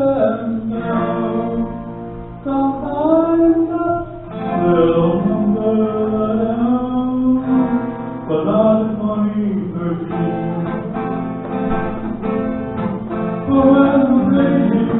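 A man singing a song with his own strummed acoustic guitar accompaniment, the guitar strumming growing plainer in the second half.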